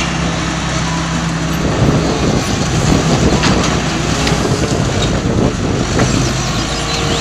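Crawler bulldozer's diesel engine running under load as it pushes its blade through brush, the engine note wavering, with the clatter of the tracks and a few sharp snaps of breaking branches.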